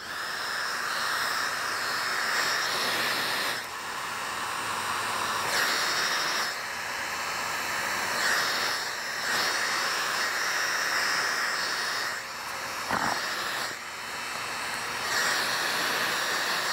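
Corded electric heat gun running steadily, its fan blowing a continuous airy rush with brief dips in loudness now and then. It is warming vinyl wrap film so the film conforms and tacks down around a curved grille edge.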